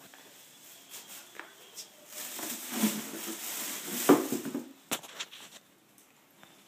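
Thin plastic bag rustling and crinkling as kittens paw and tumble at it, loudest for about two seconds in the middle, followed by a couple of sharp clicks.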